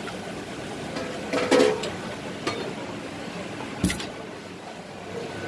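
Stainless-steel strainer, pot and cups clinking and knocking against a steady background hum, with a louder clatter about one and a half seconds in and one sharp knock just before four seconds.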